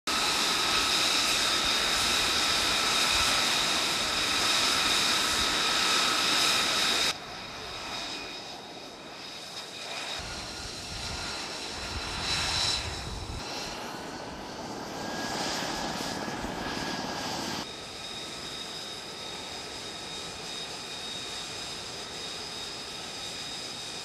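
F-35B's Pratt & Whitney F135 jet engine running with a steady high whine made of several held tones. About seven seconds in the sound drops abruptly to a quieter level, and it shifts again at a couple of later cuts.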